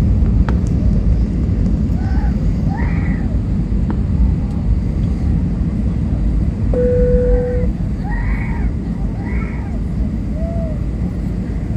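Steady low roar of an airliner cabin on approach to landing: engine and airflow noise heard from a window seat, easing slightly about eight seconds in.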